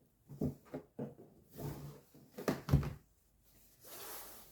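Gift packaging being handled and opened: several soft knocks and thuds, and a brief rustle near the end.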